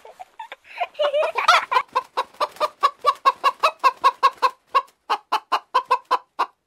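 Hen clucking in a rapid, even series of short clucks, about five a second, after a louder call about a second in.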